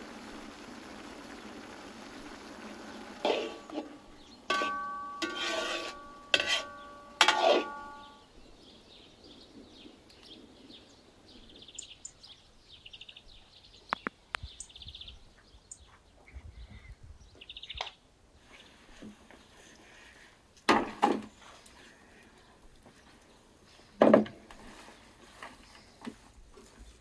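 A steaming pot hisses steadily, then a metal skimmer clanks against the pot about five times with a ringing tone. Faint bird chirps follow, and near the end come two loud thuds.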